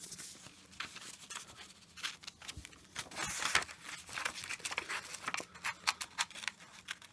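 Small scissors snipping paper in quick, irregular cuts around the petals of a drawn flower, with the sheet rustling as it is turned.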